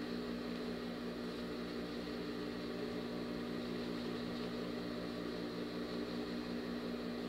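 Steady electric motor hum from a Jontex industrial sewing machine left running idle, with no stitching.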